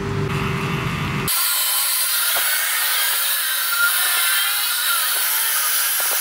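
Handheld hair dryer blowing, a steady airy rush that starts abruptly about a second in, after a low hum.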